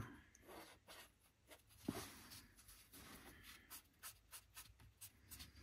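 Faint, scattered strokes of a Faber-Castell Goldfaber Aqua Dual Marker tip on sketchbook paper as grey shading is laid over pastel pencil, with one slightly louder soft tap about two seconds in.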